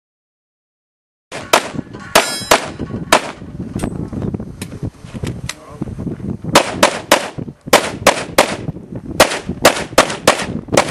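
Glock 34 9mm pistol firing a long string of rapid shots in quick groups, with a short pause about halfway through, after about a second of dead silence at the start.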